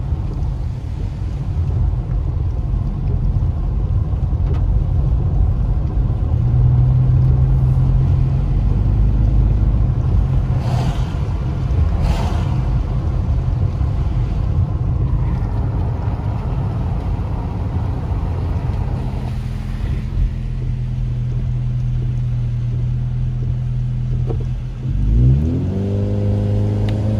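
Car interior while driving on a rain-wet road: a steady low rumble of engine and tyres with tyre hiss. Near the end, a brief pitched sound rises and falls back.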